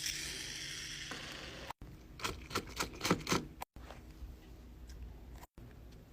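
A short hiss for about the first second, then a quick run of small clicks and taps from tools handled on an opened iPad during battery removal.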